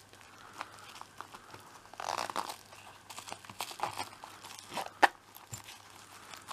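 Hands handling a small zippered pouch stuffed with a plastic bag and other small items: rustling and crinkling, short zipper rasps as the zip is worked shut, and one sharp click about five seconds in.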